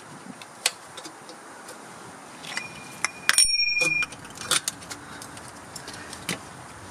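Light metallic clinks of tools and parts at the axle end. A little over three seconds in comes one sharp metal-on-metal strike that rings out with a clear bell-like tone for nearly a second. This happens while an inner axle-tube seal is being fitted in a Dana 60 front axle.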